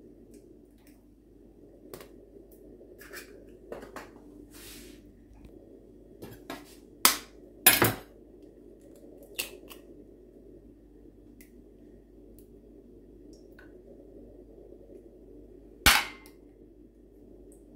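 Eggs cracked on the rim of a small stainless-steel saucepan while separating yolks from whites: sharp knocks about seven seconds in, twice more just after, and once near the end, with lighter shell and metal taps between. A faint steady hum sits underneath.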